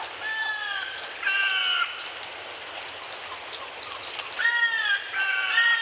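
Sci-fi 'alien' bird calls: short, slightly falling calls rich in overtones, repeated in quick runs, over a steady hiss of gentle rain. The calls come in two clusters with a pause of about two seconds in the middle, where only the rain is heard.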